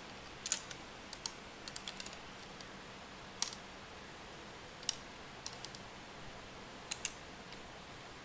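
Irregular light clicks and taps from a fishing rod being handled, some coming in quick pairs or little clusters, the loudest about three and a half seconds and five seconds in.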